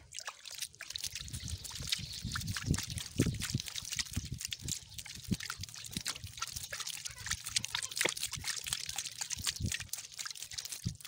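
Water poured onto dry garden soil around seedlings: a dense, irregular patter of splashing and trickling that starts about a second in.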